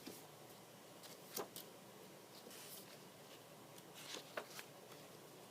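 Near silence: quiet room tone with two faint short clicks, about a second and a half in and again past four seconds.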